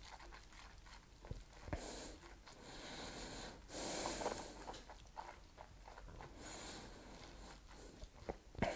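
Faint breaths through the nose while a sip of whisky is held and tasted, the loudest about four seconds in, with small clicks of the lips and tongue in between.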